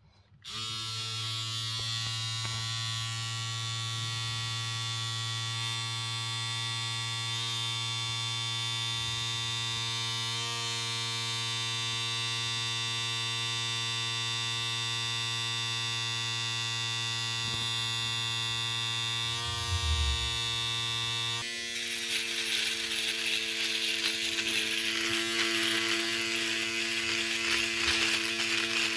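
Electric shaver switched on and running with a steady buzz. About three quarters of the way through, the buzz changes to a rougher, hissier sound.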